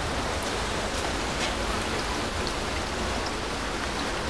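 Steady rain falling, with a few sharper drips now and then.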